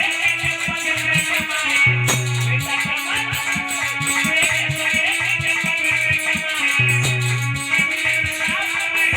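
Live band music: a plucked-string melody over sustained bass notes and a steady drum beat with a shaker or rattle.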